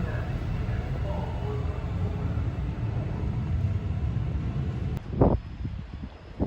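Steady low rumble of a vehicle in motion, heard from on board. It drops away about five seconds in, and a brief voice-like sound follows just after.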